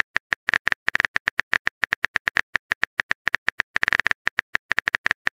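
Keyboard typing sound effect of a texting app: a quick, uneven run of identical short key clicks, about seven or eight a second, one for each letter typed.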